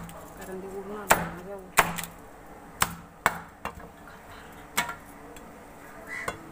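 A curved chopping blade striking through a large raw fish into a wooden chopping board: about five sharp chops, spaced irregularly, with a few lighter knocks between them.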